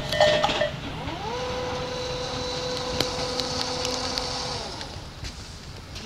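Railway level-crossing alarm bell ringing its repeating two-tone clang, then stopping just under a second in. An electric motor whine follows, rising quickly, holding steady for about four seconds and winding down: the crossing barrier arms lifting after the train has cleared.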